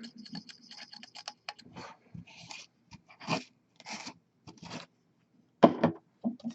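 Palette knife working acrylic paint on a palette: scattered small scrapes and clicks, with a few short scraping bursts around the middle and a louder knock near the end.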